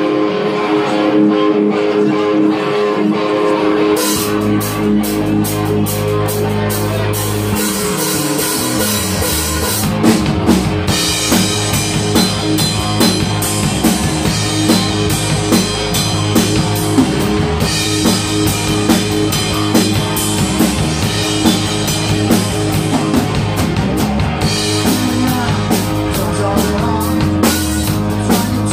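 Small rock band playing live: guitar opens, a low bass line and cymbals come in about four seconds in, and the full drum kit joins with steady beats about ten seconds in.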